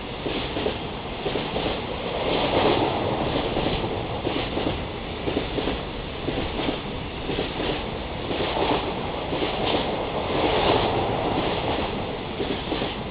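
Container wagons of a long freight train rolling past: a steady rumble of wheels on rail with repeated clacks, swelling twice as wagons pass.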